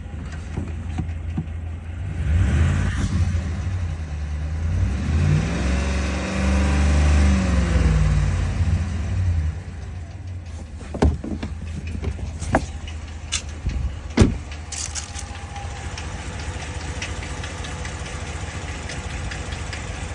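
Car engine idling. It is revved once, rising and falling back, with a few sharp knocks after it, then idles steadily with a light ticking.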